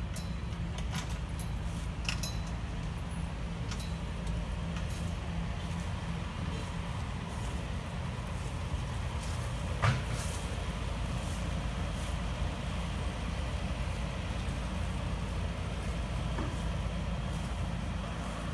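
Heavy engine running steadily with a low, even rumble, and a single sharp knock about ten seconds in.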